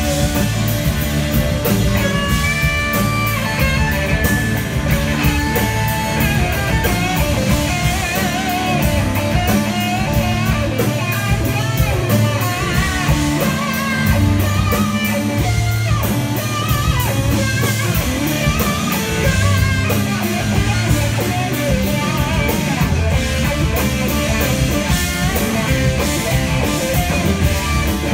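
Live rock band playing an instrumental jam: electric mandolin and electric guitars over electric bass and drums.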